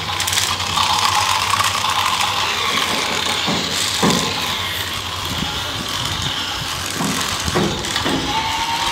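Battery-powered toy train's small electric motor and gearbox whirring steadily as it runs along plastic track, with a thin whine at the start and again near the end and a few light knocks in between.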